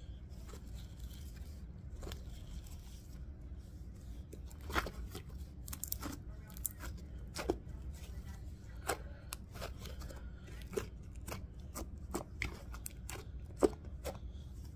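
Sticky, under-activated slime being stretched and kneaded by hand, giving off irregular sharp clicks and snaps as it pulls apart and presses together. The clicks are sparse at first and come thick and fast from a few seconds in, one of the loudest near the end.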